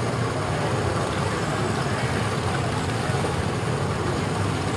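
Small gasoline engines of Tomorrowland Speedway ride cars running together, a steady engine drone as queued cars idle and others pull in.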